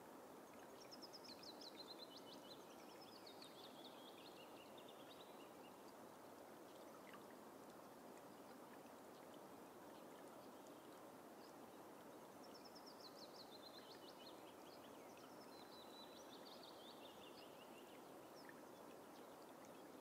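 Willow warbler singing its descending cascade of notes twice, about eleven seconds apart. The song is faint over a steady background hiss.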